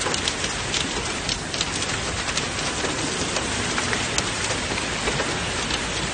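Hurricane storm noise: a steady, dense rush of wind and rain crackling on a phone microphone.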